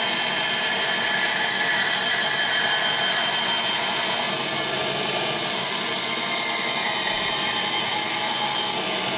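Bandsaw running steadily, its blade cutting a curve through a wooden workpiece.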